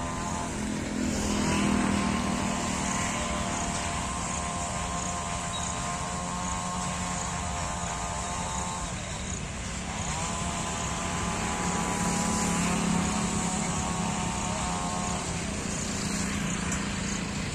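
Freight train of open wagons running past with a steady rumble. A drawn-out whine rises in pitch and holds over it twice, first for about eight seconds, then for about five.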